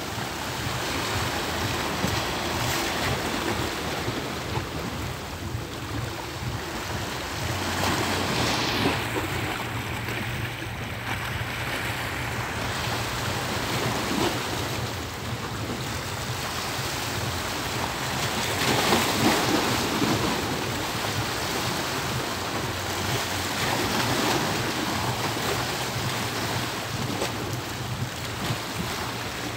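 Black Sea waves washing in a steady rush that swells louder several times, most strongly about nineteen seconds in, with wind buffeting the microphone and a steady low hum underneath.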